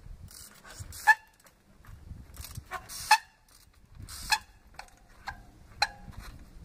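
Trials bike hopping on boulders: about six sharp knocks as the wheels land on rock, the loudest three roughly a second apart, each followed by a short, high squeal from the rim brakes grabbing, with hissing scuffs of tyres on grit and dust.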